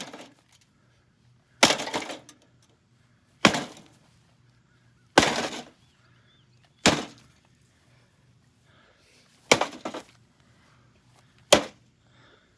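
Six heavy blows smashing into a GE JES1657SM2SS microwave oven, about one every two seconds, each a sharp crash with a short rattle of breaking parts after it.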